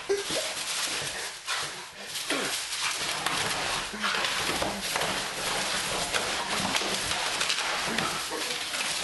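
Miniature bull terrier tearing and chewing a cardboard box: continuous crackling, scraping and ripping of cardboard, with a few short dog vocal sounds near the start and about two and a half seconds in.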